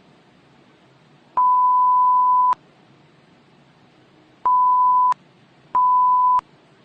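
An electronic beep tone at a single steady pitch, sounded three times: one long beep of about a second, then two shorter ones close together near the end. Each starts and stops with a click, over a faint hiss.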